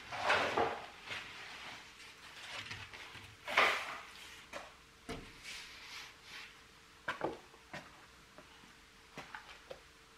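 A large board sheet being handled and shifted by hand, scraping and rubbing twice, about three seconds apart, followed by a scatter of light knocks and taps.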